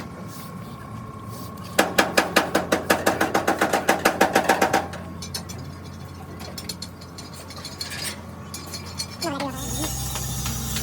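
A fast, even run of sharp mechanical clicks, about nine a second for some three seconds, starting about two seconds in, over a steady low hum.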